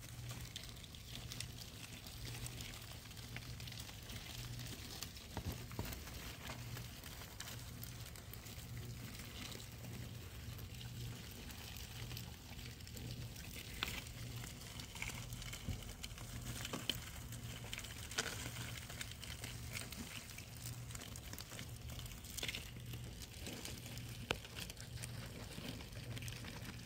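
Discoid roaches munching on an ear of corn on the cob: a faint, dense crackle of many tiny clicks as they bite into the kernels, with a few louder ticks here and there. Under it runs a low, evenly pulsing hum.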